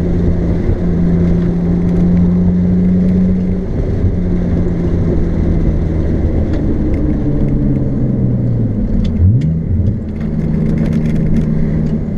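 Car engine and road noise at slow, steady cruising revs, heard from inside the car. The engine note sags about eight seconds in, then sweeps quickly up in pitch about nine seconds in, as with a gear change, before settling back to a steady hum.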